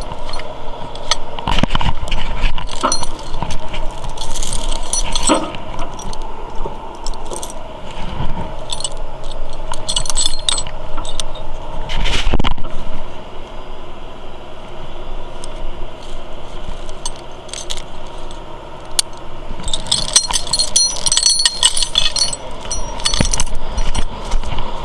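Steel tow chain clinking and rattling as it is pulled and handled, with a burst of jingling about four-fifths of the way through. Under it a tow truck's engine runs steadily.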